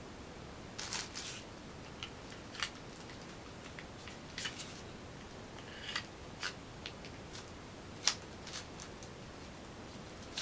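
Kitchen knives and their blade covers being handled: scattered light clicks and a few short scrapes, about a dozen in all.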